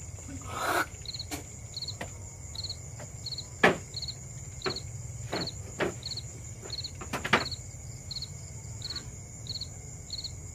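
Crickets chirping at a steady, even pace over a steady high insect hum. Sharp knocks and creaks come from the woven-bamboo floor as someone moves about, the loudest a little under four seconds in and again just past seven seconds.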